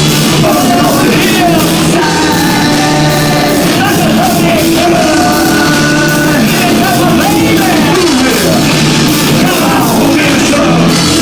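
Live rock band playing loud, with a voice singing over it, recorded on an overdriven phone microphone so the sound is heavily distorted.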